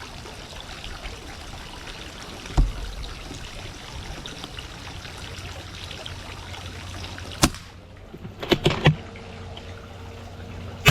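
FX Impact M3 air rifle being fired: a sharp crack about two-thirds of the way in, a quick run of clicks a second later, and another sharp crack at the very end. Under it runs a steady rushing background, with a single knock about a quarter of the way in.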